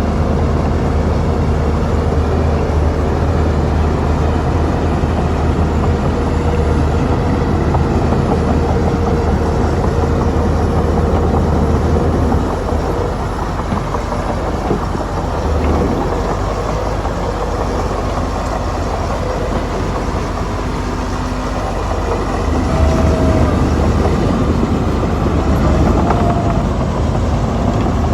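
Shantui bulldozer's diesel engine working under load, a heavy steady running; it eases off about halfway through and picks up again some seconds later.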